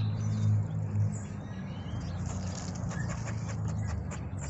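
Squirrel scolding with a run of short, sharp chirps in the second half, over a steady low hum.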